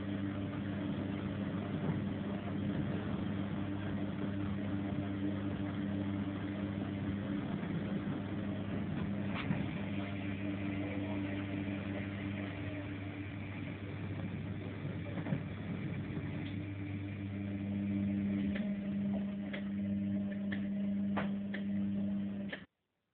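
Washing machine running with the drum turning: a steady mechanical hum under a rumbling wash noise. A few light clicks come near the end, and the sound breaks off suddenly just before the end.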